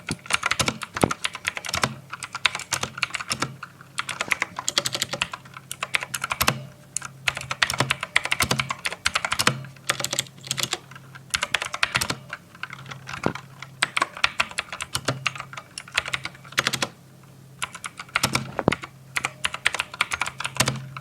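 Drevo Tyrfing V2 mechanical keyboard with clicky blue switches being typed on quickly: dense runs of sharp keystroke clicks, with a few brief pauses, the longest about 17 seconds in.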